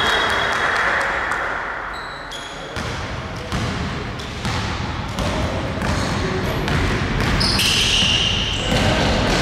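Basketball bouncing on a wooden gym floor during play, with sneakers squeaking on the court near the end.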